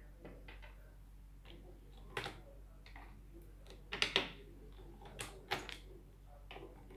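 A series of short, sharp clicks and knocks of small objects being handled, the loudest a quick cluster about four seconds in, over a faint steady hum.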